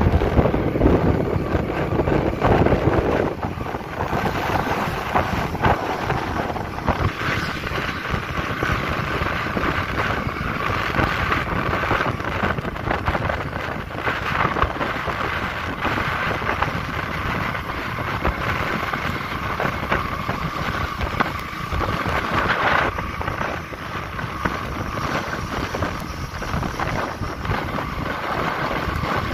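Wind rushing over the microphone while riding along a road, over steady engine and road noise from the moving vehicle.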